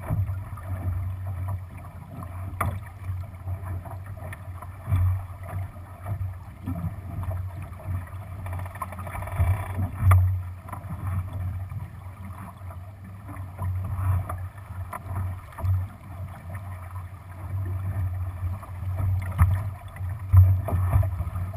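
Water rushing and slapping along the hull of a Lightning sailing dinghy running under spinnaker, with wind on the microphone making a steady low rumble. Short knocks come every few seconds.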